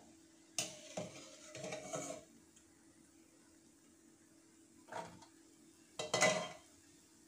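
Steel kitchenware clinking and clattering: a metal slotted spoon against a steel pan and a perforated steel plate as fried shankarpali are tipped out. Several separate clatters, the loudest about six seconds in.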